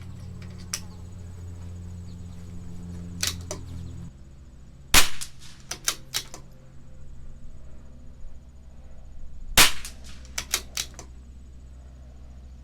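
Two .22 LR rimfire shots from a CZ 457 LRP bolt-action rifle, about four and a half seconds apart. Each is followed by a quick series of lighter metallic clicks as the bolt is worked to eject and chamber the next round.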